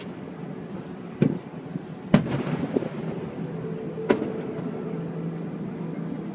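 Aerial fireworks shells bursting: three sharp bangs, the first two about a second apart and the third about two seconds later.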